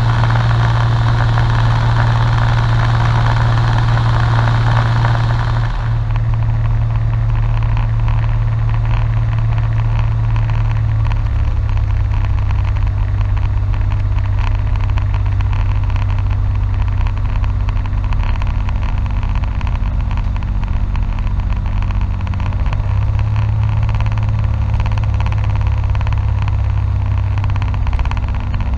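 Light aircraft's engine and propeller droning steadily, heard from inside the cockpit. About six seconds in the sound changes abruptly and loses its hiss; the drone's low pitch steps down slightly a few seconds later and rises a little again toward the end, with the approach to landing.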